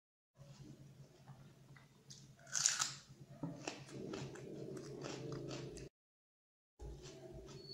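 Close-up chewing of a handful of rice and chicken curry, with a loud crunchy bite about two and a half seconds in followed by wet mouth clicks and smacking. The sound cuts out to dead silence for about a second near the end.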